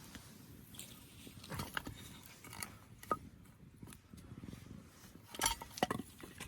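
Scattered light knocks and clinks of camp gear and firewood being handled at an open campfire, a few sharper ones about three seconds and five to six seconds in.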